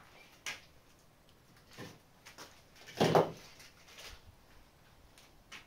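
Handling noises from unpacking wrapped bike parts: scattered light clicks and rustles, with one louder rustling scrape about three seconds in.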